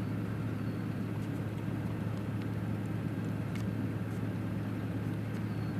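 Steady road and engine noise inside a moving pickup truck's cabin, with a constant low hum.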